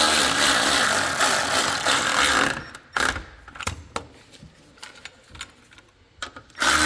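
A ratchet wrench cranked rapidly for about two and a half seconds, then scattered clicks and knocks of tools against metal, and another short burst of ratcheting near the end.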